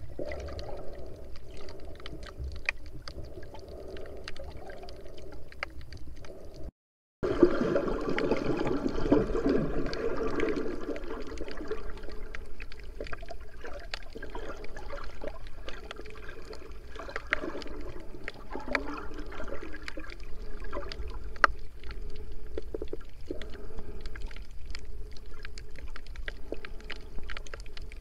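Underwater sound picked up through an action camera's waterproof housing: muffled water movement with scattered clicks and crackles. The sound drops out briefly about seven seconds in, then comes back louder.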